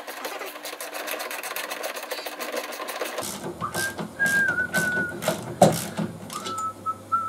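Rapid mechanical clicking for about three seconds while work goes on at a motorcycle's rear wheel. A person then whistles a few held notes, stepping between pitches, over sharp metal knocks and clinks.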